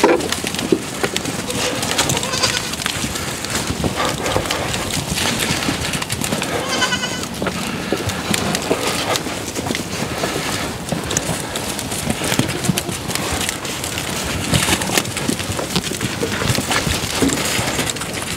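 A herd of goats in a pen, bleating, with one clear bleat about seven seconds in over a continuous rustle and knocking of the animals moving about.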